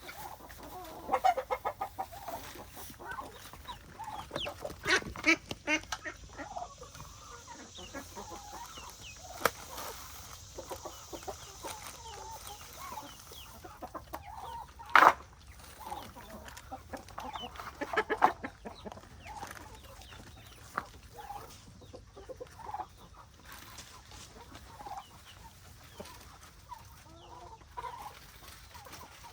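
A flock of chickens clucking, with many short calls throughout. A few sharp knocks stand out, the loudest about halfway through.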